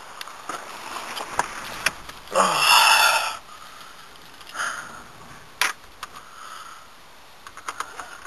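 Scattered small clicks and handling noises inside a car whose engine is not yet running, with a short breathy sniff-like sound about two seconds in.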